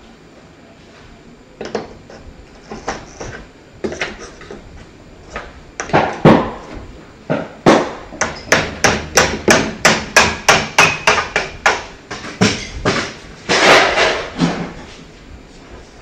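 Hammer blows: a few scattered knocks, then a fast, even run of strikes at about four a second through the middle, with a couple of heavier knocks among them.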